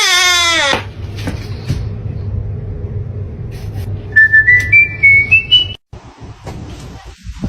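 A person whistling a thin high tone that climbs in about seven short steps, over a steady low hum. A falling, wavering pitched sound dies away in the first second.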